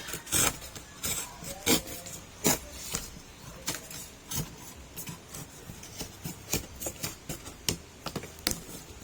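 Short knife blade scraping and cutting along the edge of a resin-coated carbon fibre part, trimming off the excess: irregular short scrapes and clicks, about one or two a second.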